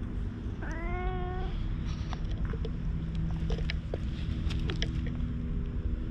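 Black cat giving one short meow about a second in, rising slightly in pitch, over a steady low rumble. A few short high ticks follow.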